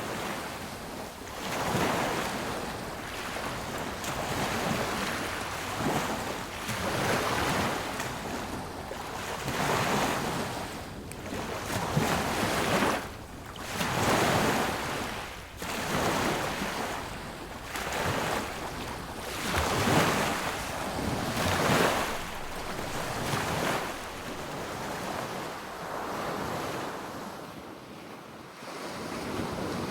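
Sea waves breaking and washing up a beach, the surf swelling and falling away again every couple of seconds.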